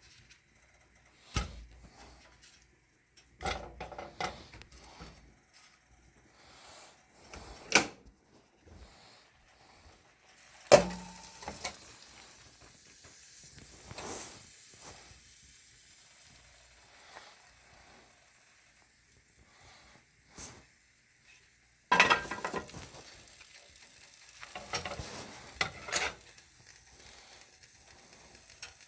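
Cooking sounds: irregular clinks, knocks and scrapes of utensils and pans over a faint sizzle of frying. The loudest knock comes about eleven seconds in, and a dense cluster of clatter follows around twenty-two seconds.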